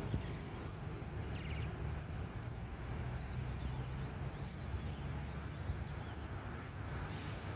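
Distant Boeing 737-800 jet engines on approach, heard as a steady low rumble. From about three seconds in to past six seconds a string of small birds chirps rapidly above it.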